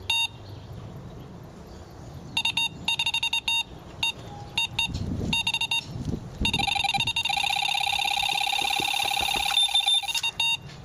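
Electronic carp bite alarm bleeping: a single bleep, then short groups of bleeps, then from about six and a half seconds an almost unbroken rapid tone, the sound of a full run, cutting off just before the end.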